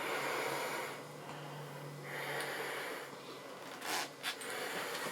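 Breathing through a gas mask's filter: two long, hissing breaths about two seconds apart. Two short clicks follow about four seconds in.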